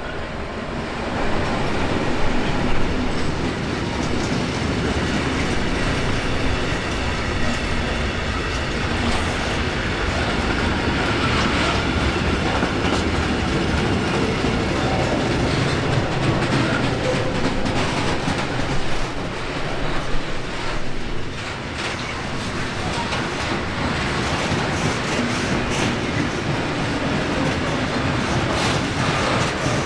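Freight train of tank wagons and covered steel wagons rolling past behind a DB class 185 electric locomotive. Its wheels rumble steadily, with a clickety-clack over the rail joints and points.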